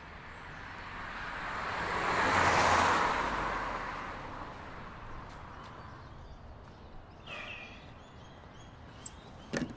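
A car driving past on the street: its tyre and engine noise swells to a peak about two and a half seconds in, then fades away. A few sharp clicks come near the end.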